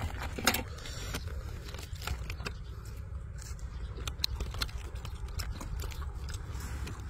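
Crisp fried chicken crackling and crunching as it is torn apart by hand, with close chewing, in many sharp clicks and cracks; the loudest crack comes about half a second in. A steady low rumble runs underneath.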